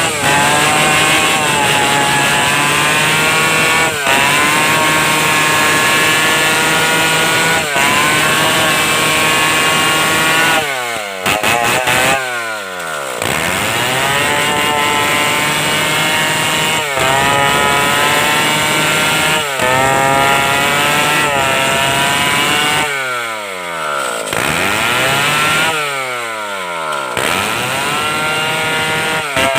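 Stihl 070 two-stroke chainsaw running at high revs as it saws through timber. Twice, about a third of the way in and again past two-thirds, the engine drops off and revs back up.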